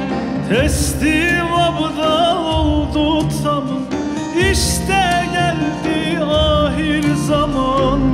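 Turkish folk song (türkü) played live: a man sings a wavering, ornamented vocal line over bağlama (saz) and a small band, with a frame drum keeping a steady beat underneath.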